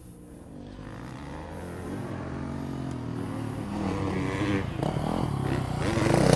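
Motocross bike engine approaching through deep ruts, growing steadily louder, its pitch rising and falling as the rider works the throttle.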